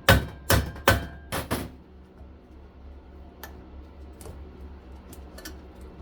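Five sharp metal-on-metal hammer blows in quick succession in the first second and a half, knocking the covers off the housing of a whole-house vacuum unit, followed by a few light clinks of metal parts.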